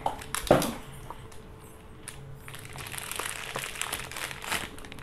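Clear plastic wrapping crinkling and crackling with scattered sharp clicks as it is pulled off a small toy pressure cooker.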